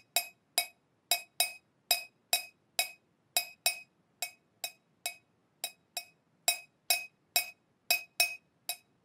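A metal teaspoon clinking against a ceramic mug in a steady rhythm, about two to three short ringing clinks a second.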